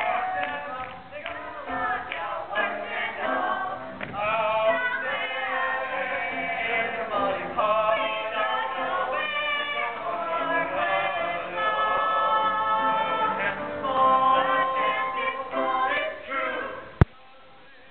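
A group of voices singing a musical-theatre song in rehearsal. It cuts off abruptly with a sharp click near the end.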